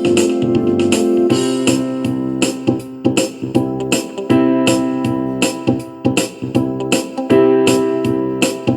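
Background music: electric piano or keyboard with a steady beat.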